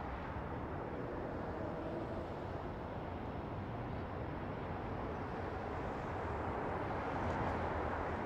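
City night ambience: a steady wash of distant traffic hum over the city, growing a little louder near the end.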